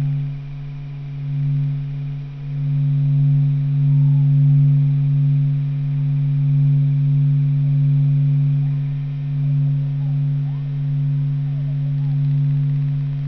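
A steady low humming drone: one deep tone with a fainter higher tone above it, swelling and ebbing slowly in loudness. Faint short warbling sounds flicker over it.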